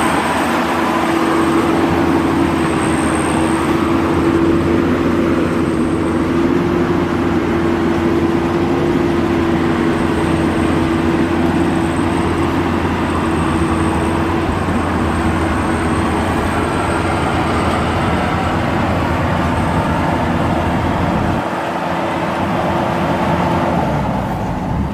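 Maxxi Bimo rice combine harvester running as it harvests: its engine and threshing machinery keep up a loud, steady drone with a sustained mid-pitched whine. The deep rumble drops off about three seconds before the end.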